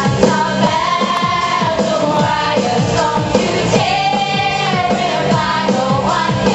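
Singers performing a musical-theatre number over a pop backing track, with long held, gliding sung notes.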